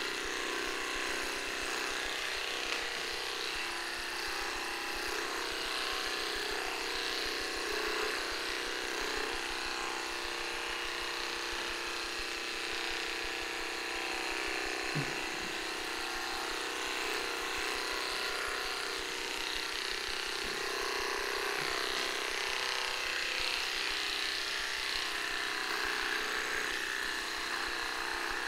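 Cordless electric pet hair clippers running with a steady buzz, trimming a small dog's coat.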